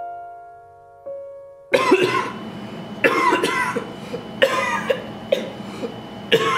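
A couple of piano notes die away, then a person starts coughing hard: a string of about five harsh coughs, one every second or so.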